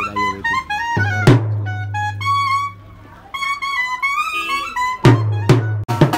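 Wedding band music: a brass melody over a large bass drum, with a few heavy drum strikes and then busy drumming near the end.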